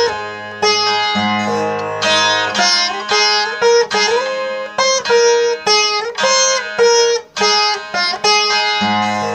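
Saraswati veena played solo: melody notes plucked one after another and bent with sliding pitch glides along the frets. The low drone strings ring under the melody at the start and come back near the end.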